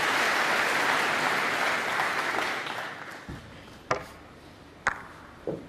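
Audience applauding a pot in a snooker match, fading away over about three seconds. Then the sharp click of the cue striking the cue ball, a second click about a second later as balls meet, and a duller knock near the end.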